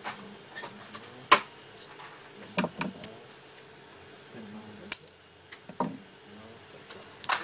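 Irregular sharp clicks and knocks of small hard objects, about half a dozen spread over several seconds, the loudest one a little over a second in.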